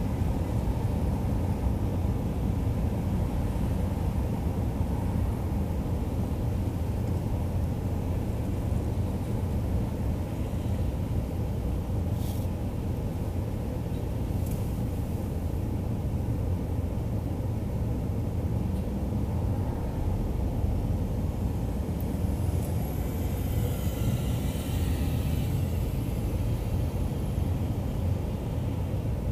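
Car driving on city roads: a steady low rumble of engine and tyre noise. Two short clicks come about halfway through, and a faint high whine rises and falls later on.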